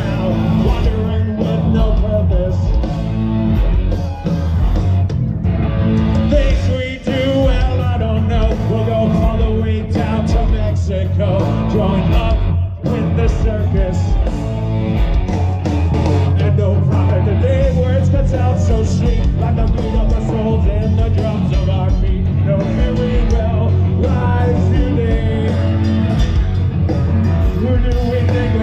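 Live rock band playing loudly over a festival PA: guitar, bass and drums with a lead singer.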